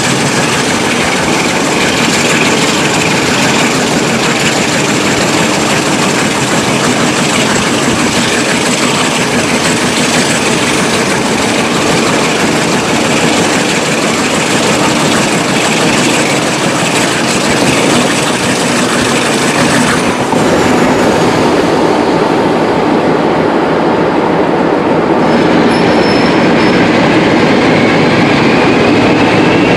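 Diesel locomotive running under power at speed, heard from beside its cab, with wind rush and wheel-on-rail clatter. About 20 s in the sound changes to a diesel locomotive hauling a train away from a platform, with a whine that rises over the last few seconds as it works up power.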